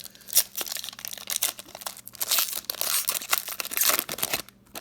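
Hockey card pack wrapper being torn open and crinkled by hand, a run of crackling and tearing with a sharp snap about half a second in.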